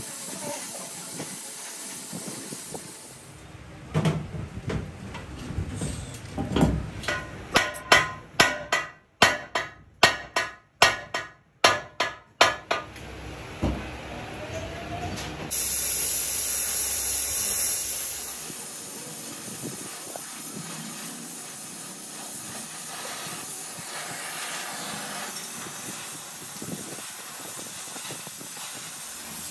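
Gas welding torch flame hissing steadily as a crack in an aluminium alloy wheel rim is welded with filler rod. Near the middle there is a run of about a dozen sharp, loud knocks, two or three a second.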